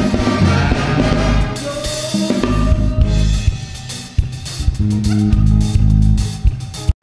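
Live band playing soca parang: drum kit, bass and saxophones, with no singing. The music thins out about four seconds in before the bass and drums come back in.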